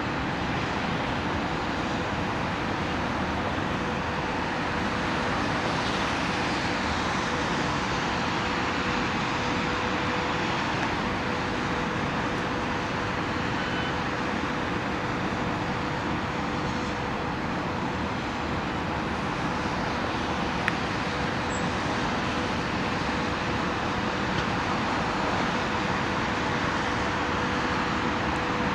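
Steady city traffic din heard from above the streets, an even wash of road noise with a steady hum running through it.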